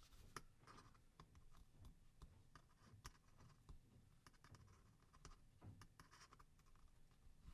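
Faint scratching and light clicks of tweezers working on a Lumia 830's chassis, peeling off adhesive.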